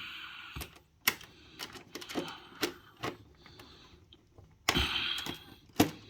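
Irregular small clicks and taps of copper wire and tools being handled at a dishwasher's electrical terminal block while a link is fitted, with two short rustling stretches, one at the start and one about five seconds in; the loudest click comes near the end.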